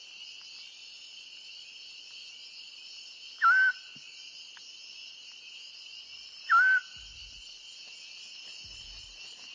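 Night-time forest ambience with crickets trilling steadily. Twice, about three seconds apart, a short whistled call sounds over them; these calls are the loudest sounds.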